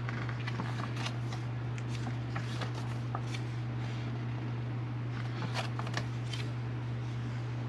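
Pages of a glossy paper instruction booklet being turned and handled, with light rustling and flicking, over a steady low electrical hum.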